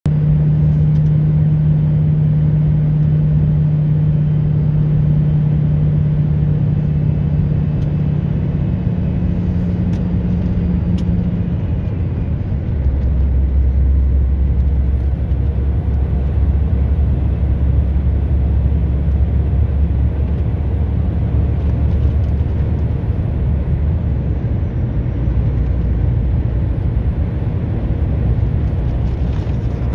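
A road vehicle driving with steady engine and road noise; the engine's hum drops to a lower pitch about twelve seconds in.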